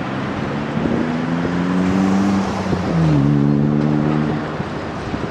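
A road vehicle's engine accelerating, its pitch rising, dropping once at a gear change about three seconds in, then rising again, over a steady rush of background traffic noise.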